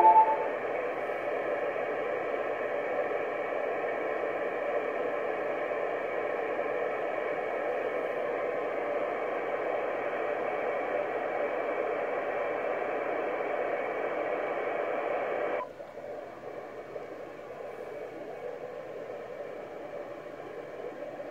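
Static hiss from an ICOM 746PRO transceiver's speaker on the ISS's 145.800 MHz FM downlink, in the lull between SSTV images. About three-quarters of the way through, the hiss cuts down abruptly to a quieter level.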